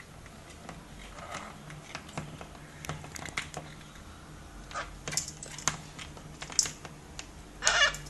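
White cockatoos' beaks and feet clicking and tapping irregularly on the window ledge, with a louder rasping burst near the end.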